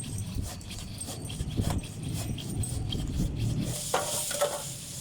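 Cardboard and plastic packaging rustling and scraping as a boxed washing machine is unpacked, with scattered small knocks and clicks and a louder stretch of rustling about four seconds in.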